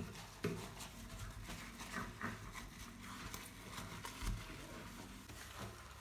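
Wet sponge scrubbing a soapy glass gas hob and granite worktop: short, irregular rubbing strokes with small clicks and knocks, and one dull thump about four seconds in.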